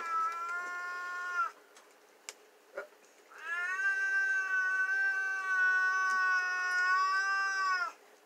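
A dog whining in two long, steady-pitched whines, a shorter one at the start and a longer one of about four and a half seconds from about three seconds in, begging for a venison treat that is being unwrapped.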